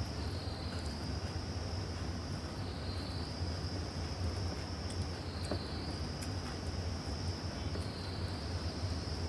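A steady high-pitched insect trill that dips and swells again about every two and a half seconds, over a steady low hum.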